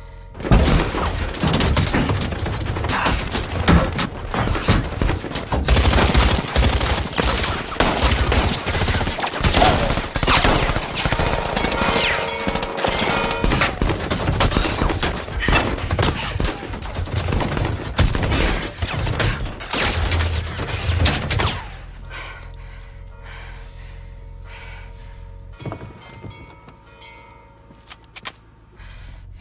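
Sustained automatic gunfire, many rapid shots with no break, as bullets pepper a car and craze its bullet-resistant windows. The firing starts about half a second in and stops abruptly after about 21 seconds. A few isolated knocks follow near the end.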